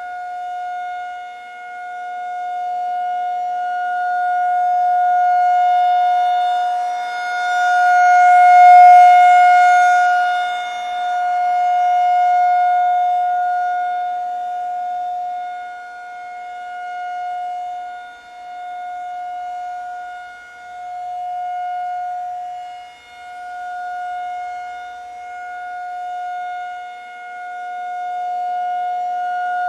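Outdoor tornado warning siren sounding a steady alert: one unchanging pitch whose loudness swells and fades again and again, loudest about nine seconds in.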